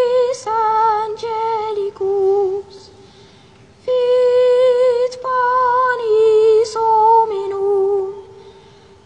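A choirboy's high treble voice singing solo with no accompaniment, in clear held notes with a light vibrato. A phrase of falling notes breaks off about three seconds in, and after a pause of about a second a second falling phrase follows and fades near the end.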